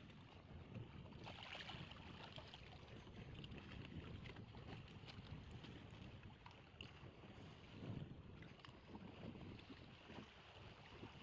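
Near silence: faint wind and water noise, with a few light clicks.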